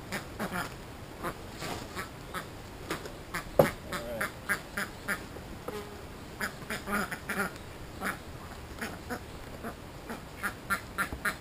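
Domestic ducks quacking repeatedly in short calls, with a single sharp knock about three and a half seconds in.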